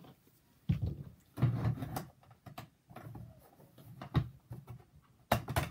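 Plastic toy camper van being handled and opened by hand: a series of hollow plastic knocks and clicks, the loudest a quick pair near the end.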